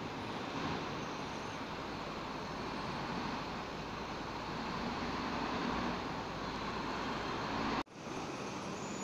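Steady outdoor background rumble of wind and distant traffic, with a deeper rumble swelling through the middle and latter part. The sound cuts out abruptly for an instant near the end.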